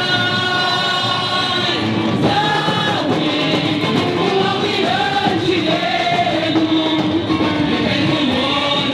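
Carnival street band playing, with many voices singing the song together like a choir.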